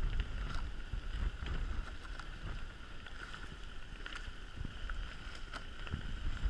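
Water rushing past the hulls of a Marstrom 32 racing catamaran under sail, a steady hiss, with wind rumbling on the microphone.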